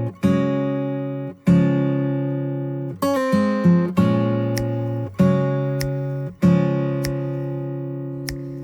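Acoustic guitar music: slow strummed chords, about one every second or so, each fading away, with a quick run of notes about three seconds in.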